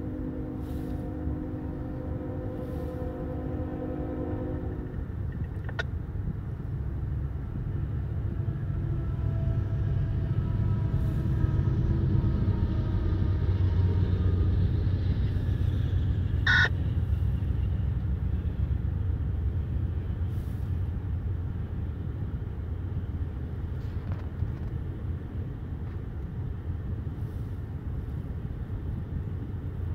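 Norfolk Southern intermodal freight train passing, heard muffled from inside a closed car: a locomotive air horn sounds a chord of several notes for about five seconds. Then the rumble of the diesel locomotives builds, is loudest about halfway, and settles into the steady rumble of the container cars rolling by, with one sharp click near the middle over the hiss of the car's heater.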